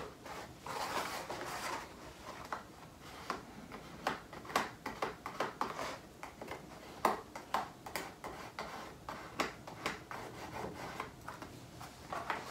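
Cardstock rubbing and sliding as a folded paper box card is handled and its corners are pressed in with a weeding tool, with scattered light taps and clicks.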